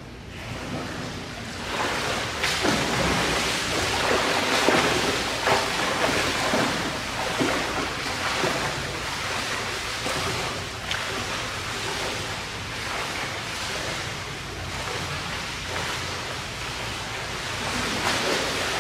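A swimmer splashing through the water with her strokes and kicks in an indoor pool. The splashing starts about two seconds in and is loudest over the next several seconds, then eases a little as she swims away.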